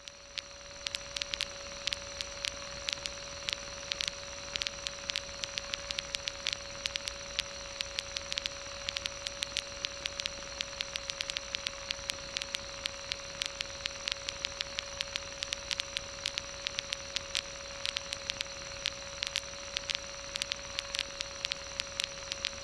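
Crackling static over a steady hiss and a steady mid-pitched whine on a light aircraft's intercom audio, with dozens of irregular sharp clicks.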